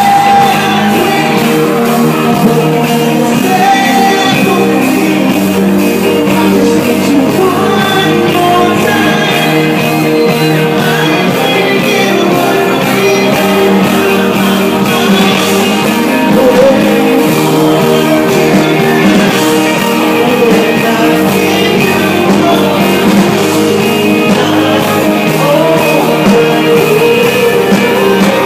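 Live rock band playing loud, with electric guitar and a steady drum beat, while a male lead singer sings into a microphone.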